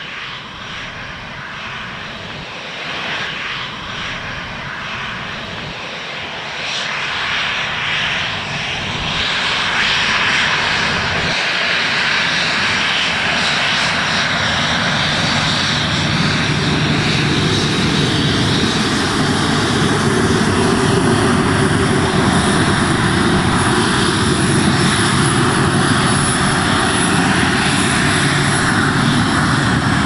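Boeing 737 jet engines running. The sound grows louder about eight to ten seconds in, then holds loud and steady as a rushing roar over a low hum.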